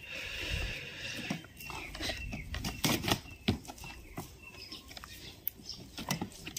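Scuffling with scattered light knocks and taps as a German shepherd puppy and a Labrador move about on a woven cot, mouthing a piece of wood.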